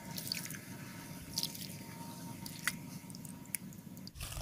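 Water dripping and trickling in scattered drops from a handful of broken rice, squeezed and lifted by hand, back into a steel bowl of rinse water.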